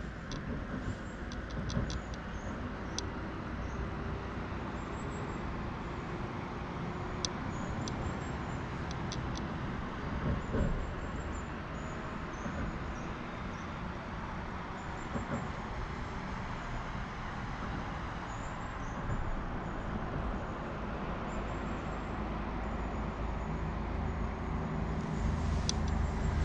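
Steady low outdoor rumble with a hiss above it, with a few faint, sharp ticks scattered through; the rumble grows louder near the end.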